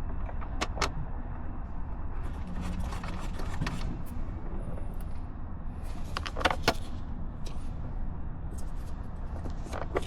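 Hands fitting a car's instrument cluster and its wiring into the dash: short plastic clicks and knocks from connectors and trim, a pair near the start, a cluster about two-thirds through and more near the end, with rustling between, over a steady low background rumble.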